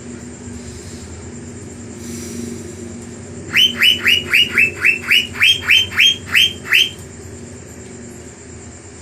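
Asian fairy-bluebird (cucak biru) singing a fast run of about a dozen loud notes, each sweeping down in pitch, about four a second, starting a few seconds in and lasting some three seconds. A steady low hum runs underneath.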